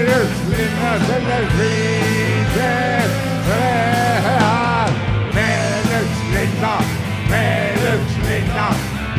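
Rock band playing live: a man singing over electric guitar, bass and drums with a steady beat.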